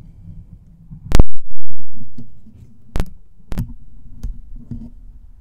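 Fingers and palm rubbing and tapping right on a microphone, a low rubbing rumble throughout. A very loud thump about a second in dies away over about a second. Sharper taps follow near three and three and a half seconds, with lighter ones after.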